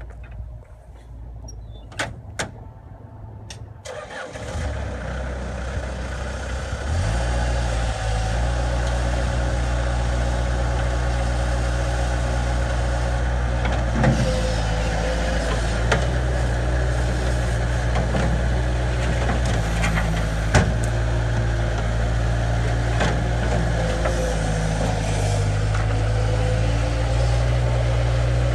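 A few sharp clicks, then the Bobcat 773 skid steer's diesel engine starts about four seconds in. It speeds up about three seconds later and then runs steadily, with occasional light clicks.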